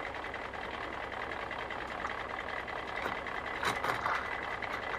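Plastic toy construction truck rolling down a ramp, its small wheels whirring steadily. A few light plastic knocks come about three and a half to four seconds in.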